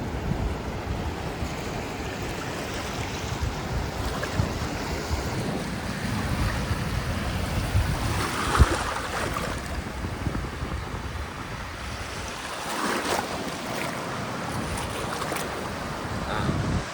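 Surf washing up on a beach, with wind rumbling on the microphone; the water surges louder about eight seconds in and again about thirteen seconds in.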